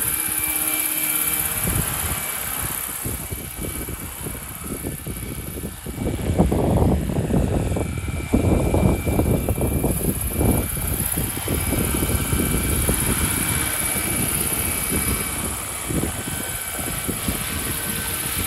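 Roban Super Scale 800 Bell 412 radio-controlled model helicopter flying, its rotors and drive giving a steady high whine. From about six to eleven seconds in the rotor noise swells into a louder, gusty low rumble as it hovers close, then settles back.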